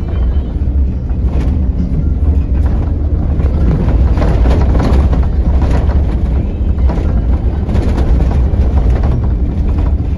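A Mercedes-Benz OH 1626 bus on the move, heard from inside: a steady low diesel engine drone and road rumble, with scattered rattles and knocks from the bodywork.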